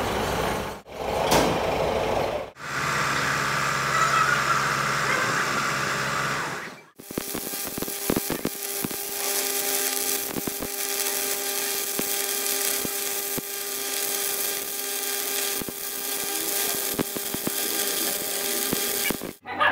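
Stick-welding arc from two electrodes held in one holder at about 300 amps: a continuous crackling sizzle with a steady hum underneath, from about seven seconds in to just before the end. Before it come a few short stretches of steady noise, each broken off by an abrupt cut.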